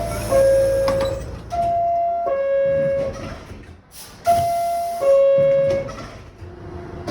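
High-pitched two-tone door-closing chime of a New York City subway car of the R46, R62A or R68 type, sounding repeatedly. Each chime is a higher note falling to a lower one. There is a short hiss about four seconds in.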